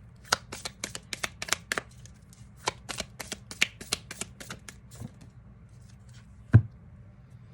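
Tarot deck being shuffled by hand: a quick run of crisp card clicks for about four seconds, then a few slower ones. A single low thump about six and a half seconds in is the loudest sound.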